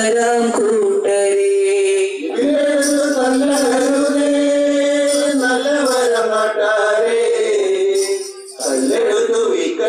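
Male voice singing long held notes over musical accompaniment, with two short breaks between phrases.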